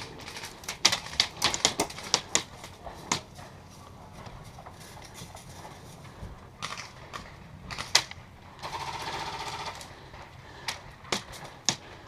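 Airsoft guns firing: a quick run of sharp single-shot snaps in the first few seconds, a few more later, and a short full-auto burst of about a second near the nine-second mark.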